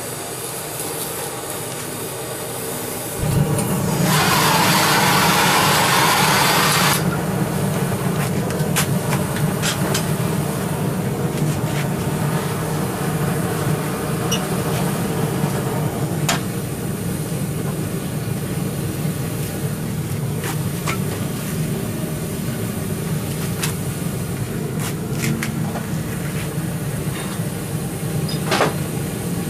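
A forge being started up: a steady low rumble begins about three seconds in, with a loud hiss for about three seconds just after it. The rumble then keeps running, with a few scattered metallic clicks and knocks over it.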